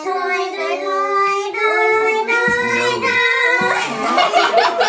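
Two women humming a wordless tune through fists held to their mouths, in long held notes that step up and down in pitch, partly in two-part harmony.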